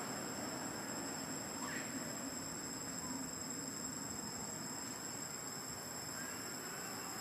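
Steady high-pitched insect chorus, two constant shrill tones holding without a break, over a soft outdoor background hiss.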